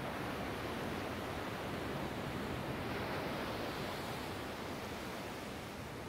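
Small ocean waves breaking and washing up a sandy beach: a steady rush of surf that swells around the middle and eases slightly near the end.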